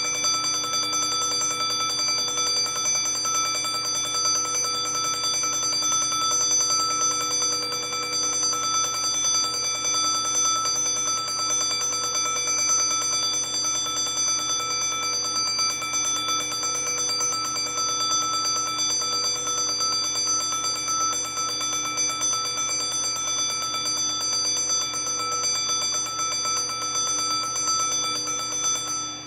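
1950s Westclox Big Ben Chime Alarm wind-up alarm clock ringing its alarm: a rapid, continuous metallic ringing made of several steady bell tones. It cuts off abruptly at the very end.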